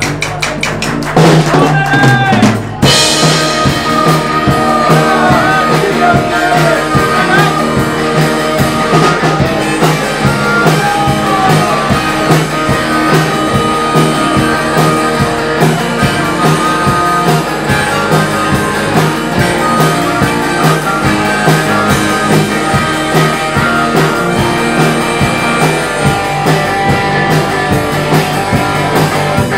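Live rock band playing an instrumental break: a harmonica played into a microphone, with bending notes, over a steady drum kit beat and electric guitar.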